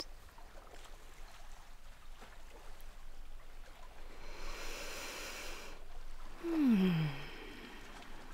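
A woman's deep breath in, followed about six and a half seconds in by a short voiced sighing exhale that falls in pitch.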